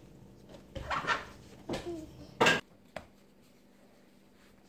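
Hands kneading pizza dough on a floured countertop: a few soft slaps and knocks of dough and palms on the counter, the loudest about two and a half seconds in, then quiet.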